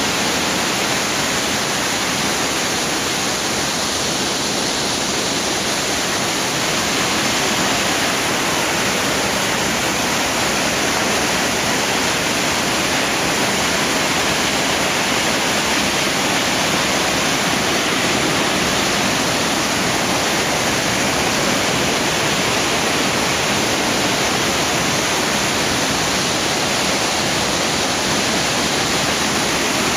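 Floodwater rushing over a river weir: a loud, steady rush of churning white water, the river in spate after heavy rain.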